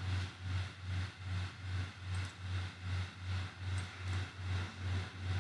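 Low machine hum throbbing about three times a second, over a faint hiss.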